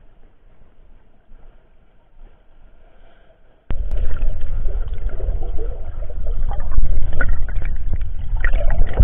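Muffled rushing and gurgling of river water picked up by a submerged camera. It is quiet at first, then a loud low rumble with crackles starts suddenly a little under four seconds in.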